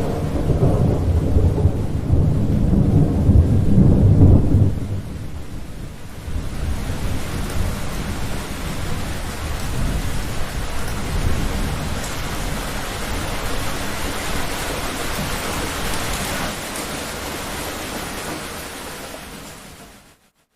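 Thunderstorm: a heavy, low rumble of thunder for the first four seconds or so, then steady heavy rain with fainter rumbling underneath, fading out near the end.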